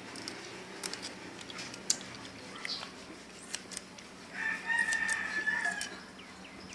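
A rooster crowing once: a long pitched call lasting about a second and a half, starting about four seconds in. Scattered light clicks are heard around it.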